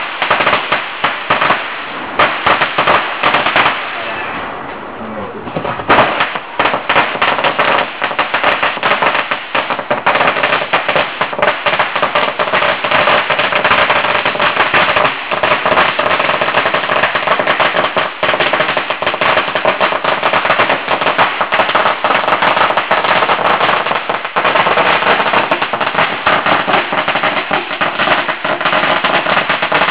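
A string of firecrackers going off in a rapid, continuous crackle of bangs, with a brief lull about four seconds in before the popping picks up again.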